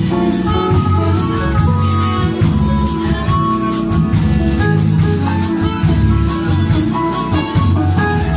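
Live jazz band playing: harmonicas carrying held melody notes over a walking electric bass line, electric guitar and drum kit with steady cymbal strikes.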